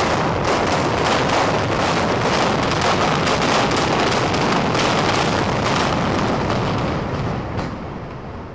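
Explosives implosion of a reinforced concrete stadium: many charges firing in quick succession, sharp blasts running together into one long loud rattle as the structure comes down. It dies away over the last second.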